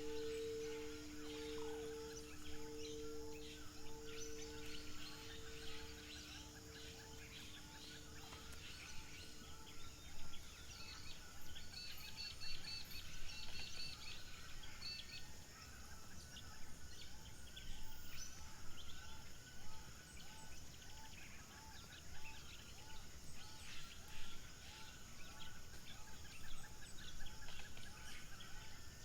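A singing bowl's ring, with a slow pulsing beat, dies away over the first ten seconds. Under and after it, birds call and chirp outdoors, with a regular chirp repeating about twice a second.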